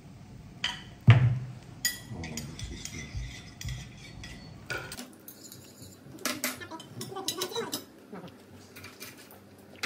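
Eating sounds: chopsticks clicking and tapping against a dish at irregular intervals, the loudest tap about a second in, with chewing close to the microphone.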